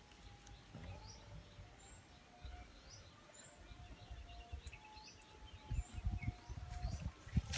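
Faint outdoor birdsong: scattered short, high chirps from wild birds. Soft rustling and bumps of hands handling a trapped bird among dry leaves, growing louder near the end.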